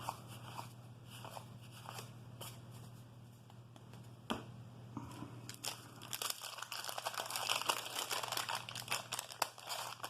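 Wax-paper wrapper of a 1988 Topps baseball card pack crinkling and tearing, with scattered sharp clicks and then a dense spell of crackling from about six seconds in.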